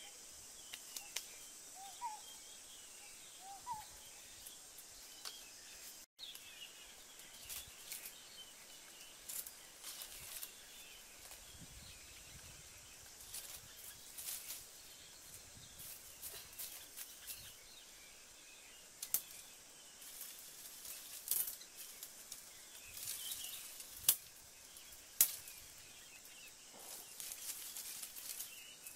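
Dry twigs and leaf litter rustling and snapping as they are gathered and broken by hand, with sharp cracks at scattered moments over a steady high hiss. Near the end comes the crackle of a small kindling fire catching. A bird chirps twice a few seconds in.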